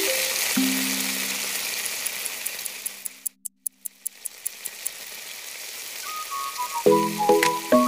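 Pork and liver stew sizzling in a pan, with soft background music. The sizzle fades out about three seconds in, leaving a few faint ticks, and comes back; the music returns near the end.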